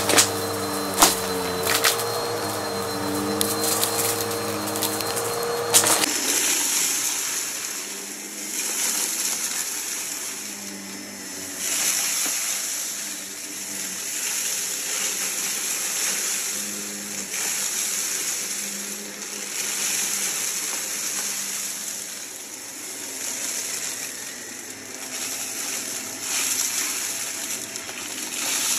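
Vacuum cleaner running. For about six seconds there is a steady motor whine with a few clicks, then it changes suddenly to a rushing hiss that swells and fades about every two seconds, like the vacuum being pushed and pulled back and forth over the floor.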